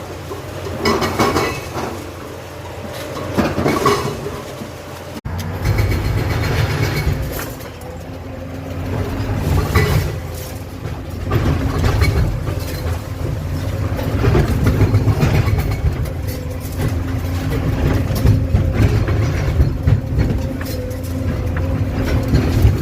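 Excavator at work: rattling and clanking for the first few seconds, then, after an abrupt cut about five seconds in, a heavier and steadier engine rumble.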